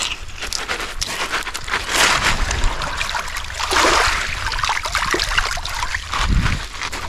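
Small waves washing and trickling over a pebble beach, swelling twice, with scattered clicks of stones being knocked as fish are handled on the pebbles.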